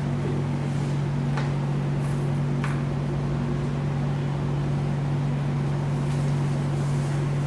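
A steady low machine hum, with a few faint short scrapes of a small carving knife shaving a block of dental carving wax, about a second and a half and two and a half seconds in.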